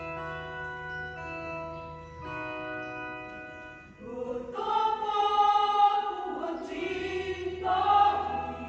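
Electric organ holding sustained chords. About four seconds in, a mixed church choir comes in singing over it, much louder, and drops out shortly before the end, leaving the organ.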